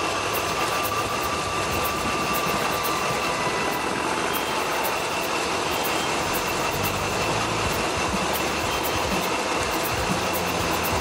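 Off-road rally truck's engine running steadily, an even mechanical hum with a thin high whine held over it.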